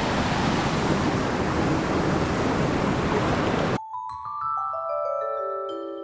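Water rushing steadily over a small rocky cascade into a pool. About four seconds in it cuts off suddenly and background music takes over: a run of ringing struck notes stepping down in pitch.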